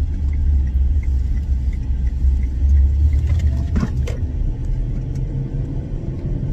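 Steady low road and engine rumble inside a moving car's cabin, heaviest in the first few seconds, with a couple of short knocks about four seconds in.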